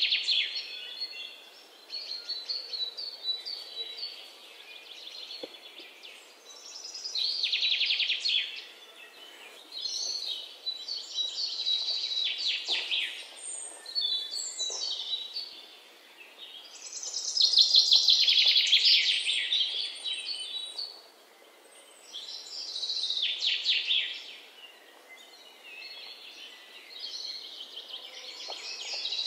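Birds chirping and trilling in bursts every few seconds, over a faint steady hiss.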